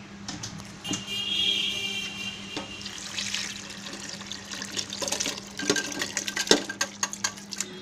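Boiled chicken pieces and their broth poured from one metal pot into a pressure cooker of thick masala, a running liquid pour. In the second half come a series of sharp knocks and clinks of metal pots and spoon.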